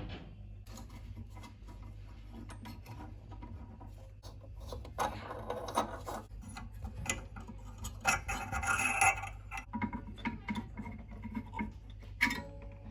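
Ideal Logic 30 gas boiler with a steady low hum, overlaid by irregular scratching and rubbing noises that grow louder for about a second twice near the middle.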